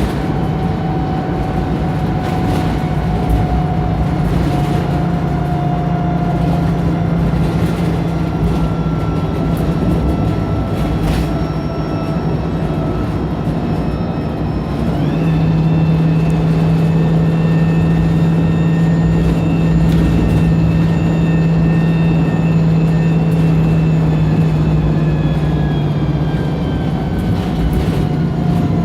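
Wright Pulsar single-deck bus pulling under load, heard from on board: a steady engine drone with whines slowly falling in pitch. About halfway the pitch and loudness jump up suddenly as the automatic gearbox kicks down, then the pitch sinks slowly again as the bus accelerates.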